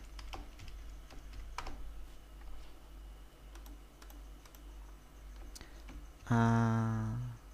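Scattered computer keyboard keystrokes and mouse clicks as a file name is typed and saved. Near the end a man's voice holds a wordless 'ehh' for about a second, louder than the clicks.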